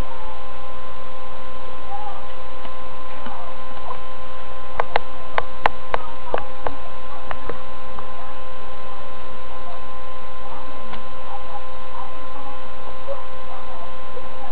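Steady electrical hum with a steady pitched buzz, and a quick run of about eight sharp clicks around the middle.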